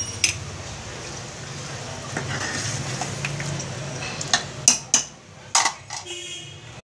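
A metal ladle stirring a watery meat-and-pea curry in an aluminium pressure cooker, a soft steady swishing, then a few sharp clinks of the ladle against the pot in the second half.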